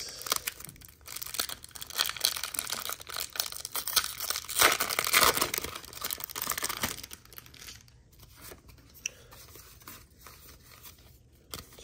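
Pokémon Battle Styles booster pack's foil wrapper crinkling and being torn open, loudest a little past halfway through. Then a quieter rustle as the cards are pulled out and handled.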